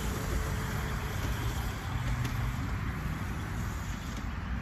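Small kid's dirt bike riding away across a grass field, its motor running steadily under a haze of outdoor noise.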